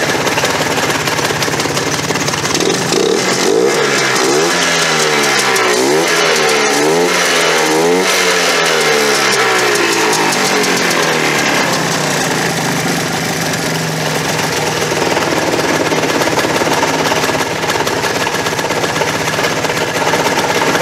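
Polaris Trail Boss 250's two-stroke single-cylinder engine running, just brought back to life after sitting for years. It is revved up and down several times in quick succession a few seconds in, then settles back to a steady run.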